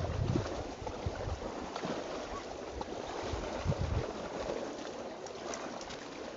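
Wind rumbling on the microphone, strongest in the first second, over a steady hiss of small waves lapping at the lakeshore.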